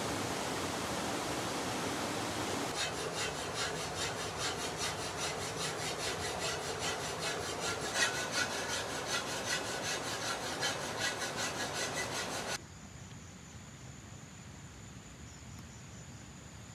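Steady noisy hiss, then a regular rasping scrape at about four strokes a second that stops abruptly; after that a quieter steady hiss with a thin high tone.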